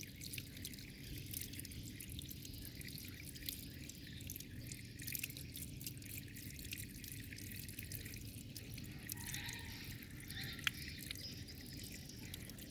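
Shower water spraying and dripping, with many small splashes and drips and one sharper click near the end.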